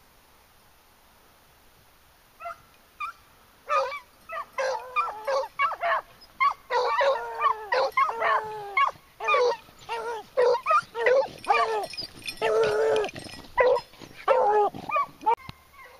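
A pack of beagles baying on a cottontail's scent trail. A couple of short yelps come about two and a half seconds in, then from about four seconds a near-continuous run of loud, falling bays, several dogs at times calling over one another, which breaks off shortly before the end.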